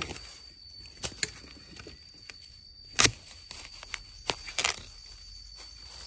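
A long-handled digging spade chopping into the base of a wild bamboo shoot: a few sharp separate chops, the loudest about halfway through, cutting the shoot free.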